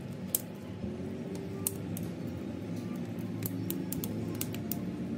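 Background music with a scattered series of small, sharp clicks and taps over it, the kind made by small tools working on a phone.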